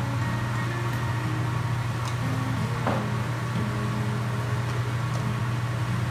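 A steady low machine hum, with a faint sizzle of green chilli sambal frying in oil in a wok and a single light metal clink about three seconds in.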